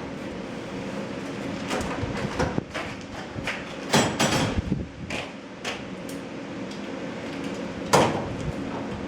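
Scattered knocks and clanks of garage-door installation work, the loudest about four seconds and eight seconds in, over a steady low hum.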